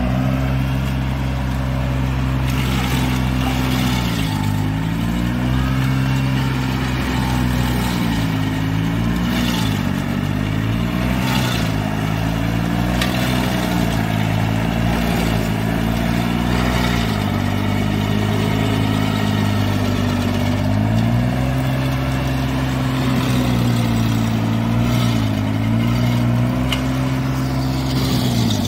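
Stump grinder engine running under load, its pitch dipping again and again as the cutter wheel bites into the stump and recovering between cuts, with rasps of grinding now and then.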